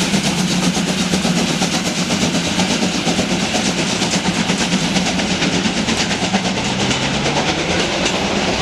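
Steam locomotive working a passenger train past at speed: a fast, even rhythm of exhaust beats with hissing steam from the open cylinder drain cocks and the clatter of the coaches' wheels on the rails.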